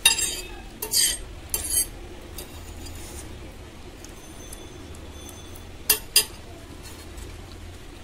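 Metal fork clinking and scraping against a plate while gathering the last noodles: three sharp clinks in the first two seconds, then two more close together about six seconds in.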